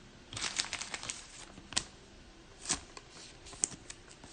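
Baseball trading cards being handled: a quick run of light clicks and snaps in the first second, then a few single clicks spaced about a second apart.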